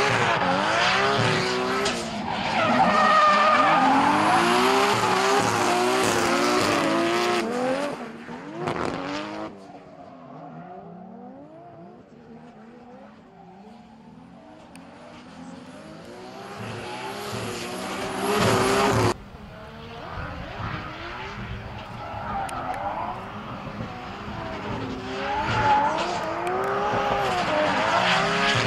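Two drift cars sliding in tandem: their engines rev up and down over and over while the tyres screech and hiss in the slide. The sound breaks off suddenly twice, and a quieter, more distant passage sits in the middle.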